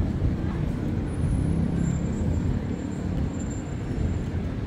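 City traffic, led by the steady low rumble of an articulated city bus and passing cars. A faint thin high whine sounds for a couple of seconds in the middle.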